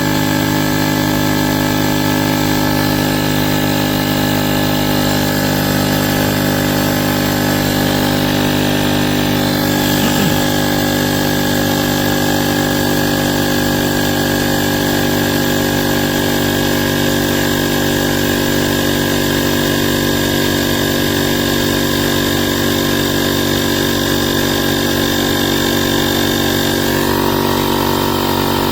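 Inzeetor 12V portable tire inflator's compressor running steadily as it pumps up a car tire toward its 33 PSI auto-shutoff target.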